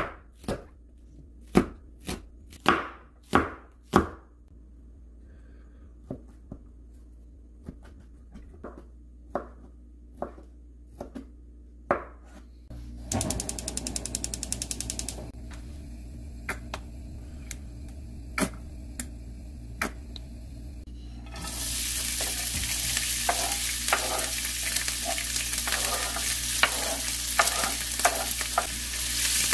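Kitchen knife chopping green onion and carrot on a wooden cutting board, a few hard strikes and then lighter ones. About thirteen seconds in, a quick run of clicks from the gas stove's igniter. From about twenty-one seconds on, diced carrot, green onion and ham sizzle loudly as they fry in a nonstick pan.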